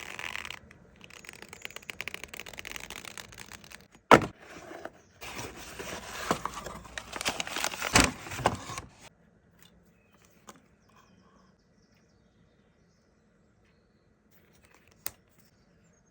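Natural leather cardholder being handled: the leather rustling and creaking as it is rubbed and flexed, with a sharp snap about four seconds in. The rubbing stops after about nine seconds, leaving a few small clicks and a single sharp tick near the end.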